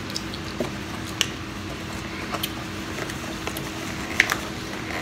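Quiet room with a steady low hum and a few faint, scattered clicks and soft rustles from hands handling a cardboard snack box and its wrapper.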